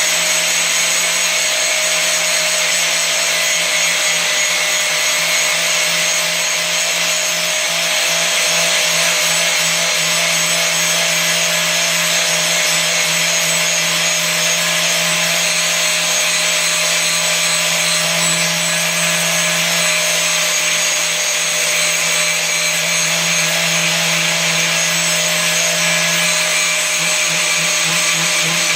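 Angle grinder running steadily under load, its disc grinding the cutting edge of a steel mower blade held in a vise, a steady motor hum under a loud grinding hiss.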